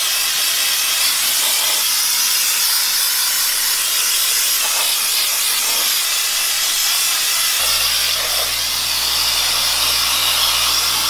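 Air Shine Pro compressed-air wash wand spraying rinse water onto a mini bike: a steady, loud hiss of air and water. About two-thirds of the way in, a low steady hum joins underneath.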